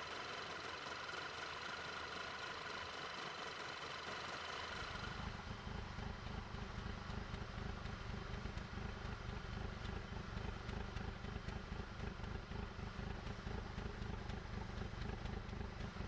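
Audi A3 engine idling rough and uneven, the misfiring and RPM surging that came on after the engine bay was soaked with water. About five seconds in, the sound changes to a deeper, irregular pulsing.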